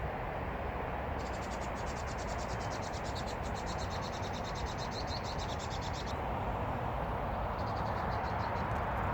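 An insect trilling high-pitched in rapid, even pulses, cricket-like, over a steady rushing background. The trill starts about a second in, runs for about five seconds, stops, then returns briefly near the end.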